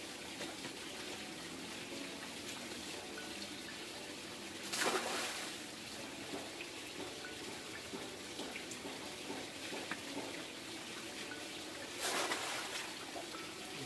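Live catfish tipped from a basket into a fishing pond, splashing into the water twice: once about five seconds in and again near the end, with a steady low hiss between.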